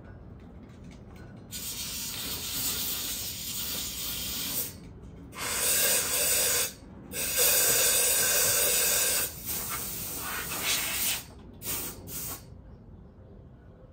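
Compressed-air blow gun on a compressor hose blowing dust out of holes drilled in a concrete foundation, cleaning them for epoxy-set rebar. The air hisses in several bursts of one to three seconds with short breaks, loudest in the middle, with a couple of brief puffs before it stops about twelve seconds in.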